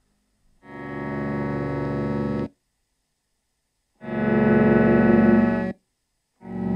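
Sustained electronic keyboard chords, each held for about two seconds and cut off abruptly, with full silence between them. The second chord is louder, and a third begins near the end.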